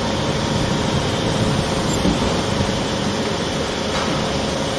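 Steady drone of running machinery with a faint constant whine.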